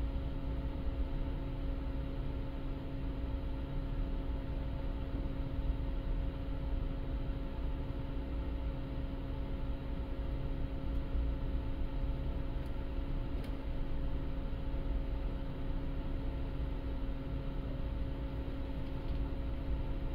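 Steady low drone of a car ferry's engines and machinery heard aboard, a deep rumble with a constant hum, plus a couple of faint ticks about midway.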